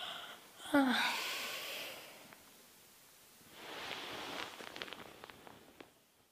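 A woman's laboured breathing: a noisy breath, then a short voiced gasp that falls in pitch about a second in, followed by breath noise. From about three and a half seconds comes a longer rustling sound with small clicks.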